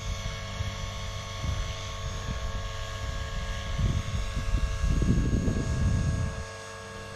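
Distant electric RC P-51D warbird in flight: a steady whine from its brushless motor and propeller. Under it, an uneven low rumble of wind on the microphone, heaviest from about four to six seconds in.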